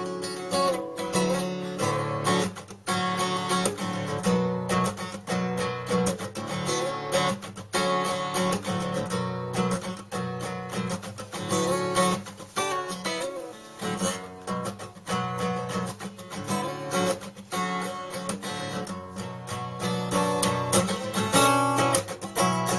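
Background music: acoustic guitar, strummed and plucked.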